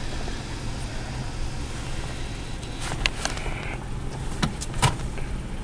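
Car engine idling, heard from inside the cabin, with a few short clicks about three and five seconds in.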